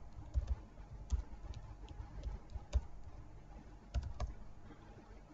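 Typing on a computer keyboard: irregular, fairly quiet key clicks in quick runs, with two last keystrokes about four seconds in.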